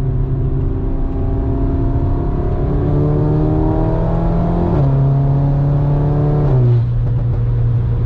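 Audi S3's turbocharged 2.0-litre four-cylinder, fitted with a 4-inch downpipe, heard from inside the cabin while accelerating. The engine note climbs, drops with an upshift about five seconds in, climbs again, and drops with a second upshift near six and a half seconds, then settles to a steady cruise.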